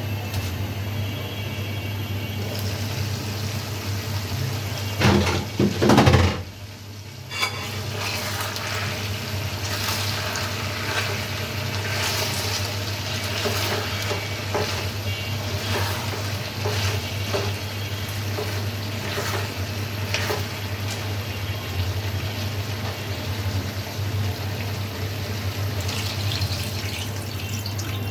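Chicken kosha frying in a pan: a steady sizzle with frequent clicks and scrapes of a spoon or spatula stirring the masala. Over it runs a steady low hum, and there is a brief louder sound about five seconds in.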